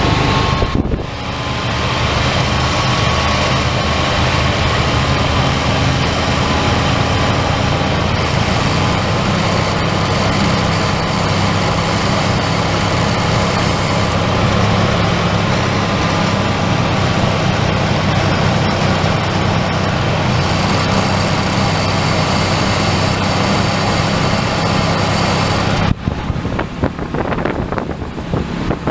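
1994 Chevy Silverado's 5.7-litre (350) V8 running steadily while a Seafoam treatment burns through it. Near the end the sound changes abruptly to a thinner, choppier noise.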